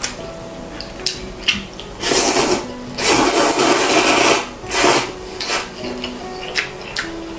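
Noodles being slurped: one slurp about two seconds in, a longer one from about three to four and a half seconds, then a short one near five seconds.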